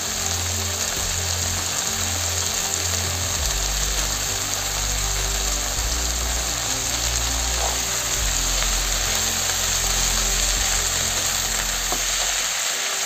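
Spinach and coriander cooking in hot oil in a kadhai: a steady frying sizzle. Soft background music with low held notes plays underneath.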